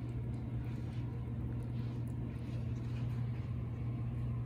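A steady low hum of a running machine, unchanging throughout, with faint light ticks over it.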